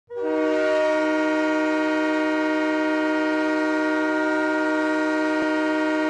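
Tucson Roadrunners' hockey goal horn blowing one long, steady chord of several pitches, starting abruptly right at the beginning: the horn that signals a home goal.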